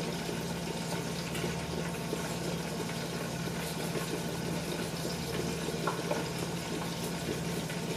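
Steady watery hiss of food cooking on the stovetop, over a low steady hum.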